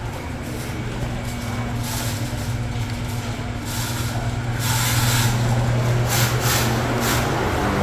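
Ventisilva VPL 65 cm wall fan running, its 150 W motor humming steadily under the rush of air from the blades. The air noise grows louder and brighter about halfway through.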